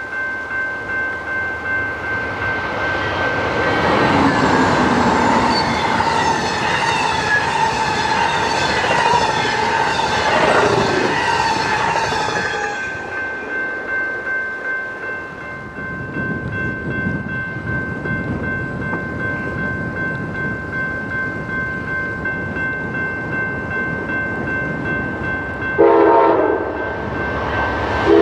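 Amtrak passenger train passing at speed, sounding its horn for several seconds with a slight drop in pitch as it goes by, then the cars rumbling and clattering over the rails. A short loud blast comes near the end.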